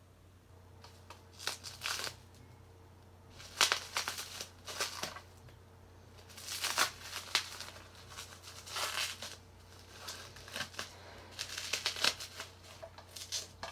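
Packaging being unwrapped by hand: a wrapper crinkling and rustling in irregular bursts.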